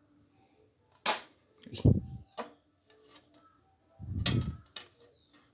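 A few sharp knocks and clicks from hands handling things among small glass fish tanks: one about a second in, a duller thud just before two seconds, and another pair around four to five seconds.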